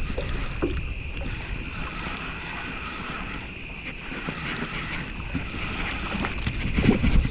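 Wind rumbling on the microphone, with a steady high-pitched hum behind it and a few faint knocks.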